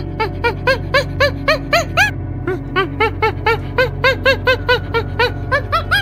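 A fast series of short, squeaky animal calls, each rising and falling in pitch, about four a second, over background music.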